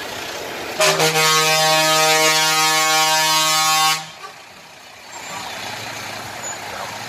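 Truck air horn blowing one long blast of about three seconds, several notes sounding together, starting about a second in and cutting off sharply. It rises over the running of a slowly passing Volvo FH tractor unit, whose engine noise carries on after the horn stops.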